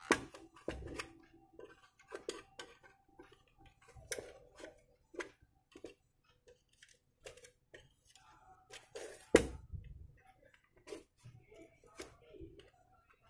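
Thin metal tool prying and scraping at the seam of a plastic switching-mode power supply case, with irregular clicks and taps of hard plastic as the housing is worked open. A sharper knock about nine seconds in is the loudest sound.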